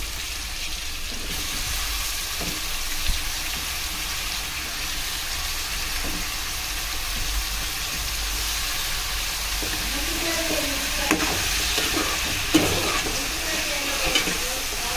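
Potatoes and freshly added brinjal slices frying in oil in an aluminium pot: a steady sizzle, with a few sharp knocks and clatters of pieces and spoon against the pot in the second half.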